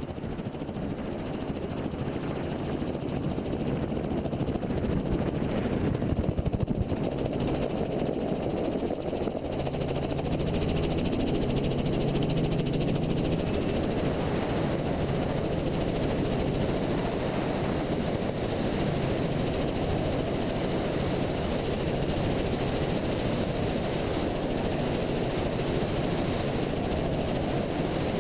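Helicopter engine and two-bladed main rotor at lift-off. The sound grows louder over the first several seconds as the helicopter takes off, then runs steadily through the climb.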